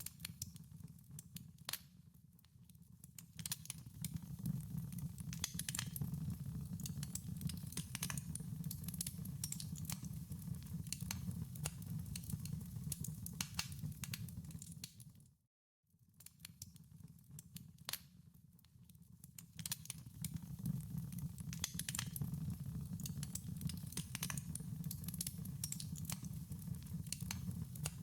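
Wood fire crackling in a fireplace: a steady low rumble of flames with scattered sharp pops and snaps. About halfway through the sound cuts out for a moment and fades back in.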